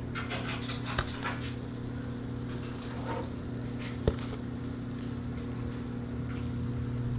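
Paper towel rustling and crinkling as freshly fried, crumb-coated fish fillets are handled on it, with a light knock or two on the plate beneath. A steady low hum runs underneath.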